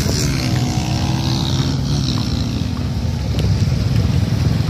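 A road vehicle's engine running on the move. Its pitch slides down over about the first two seconds as it eases off, then settles to a steady hum, with wind noise on the microphone.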